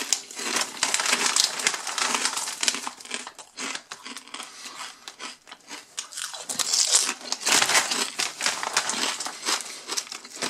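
Foil-lined potato chip bag crinkling and rustling as it is tilted and handled and a hand reaches in for chips, with louder bursts of crackle about a second in and again around the middle.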